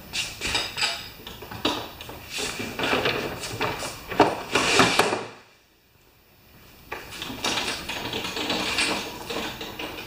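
Clatter and scraping as a push mower is set down off a small wooden wheeled dolly and the dolly is rolled aside on a concrete floor, with knocks and the rattle of caster wheels. There is a brief lull just past halfway.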